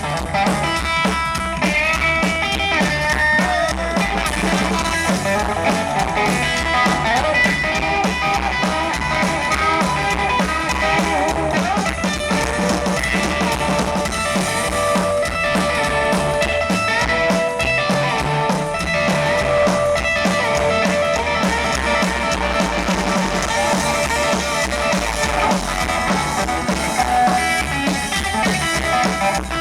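Live rockabilly trio playing an instrumental passage: electric guitar lead lines with bends over upright bass and a drum kit keeping a steady beat.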